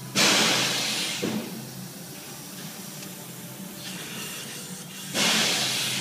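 Compressed air hissing in two strong bursts of about a second each, one just after the start and one about five seconds in, with a fainter steady hiss between them.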